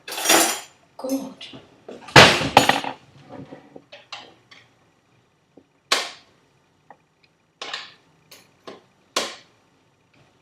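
Kitchen items clattering and knocking as they are handled and set down: a loud clatter about two seconds in, then a scattering of sharp clicks and taps.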